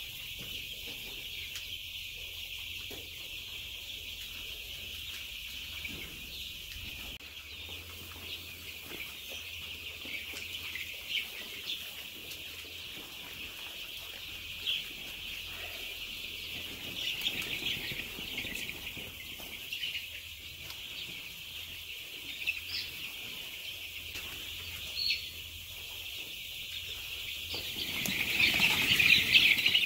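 A large flock of young Australorp and Rhode Island Red chicks peeping in a continuous high-pitched chorus, with single louder peeps standing out now and then. It swells loudest near the end.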